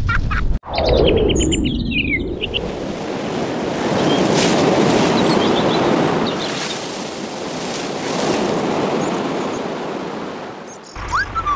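A steady rushing noise, like surf, that swells and fades, with scattered small bird chirps over it. Near the start the sound drops out briefly, then a sweeping tone comes in with a quick run of chirps.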